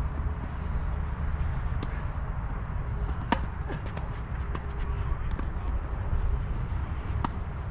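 Tennis balls being struck and bouncing: scattered sharp pops, the loudest about three seconds in and a few fainter ones after, over a steady low rumble.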